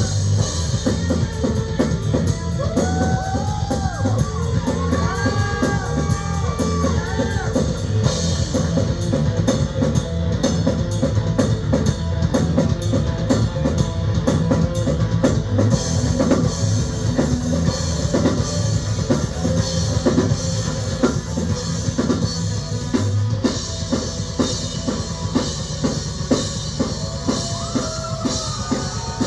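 Live heavy rock band playing, with pounding drums and electric guitar. The drums are mixed too heavy, so the guitar sounds buried, as if the drum microphones were turned up and everything else down.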